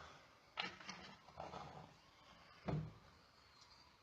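Quiet kitchen handling noises: a few light knocks and rustles, then a louder dull thump a little before three seconds in.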